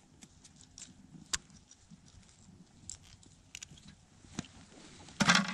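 Scattered small clicks and rustles of metal fishing pliers and gloved hands while a hook is worked out of a small panfish's mouth, with one sharper click about a second in and a short louder rustling burst near the end.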